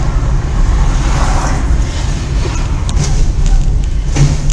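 Car on the road: a steady low rumble of driving, with a few short knocks, the loudest about four seconds in.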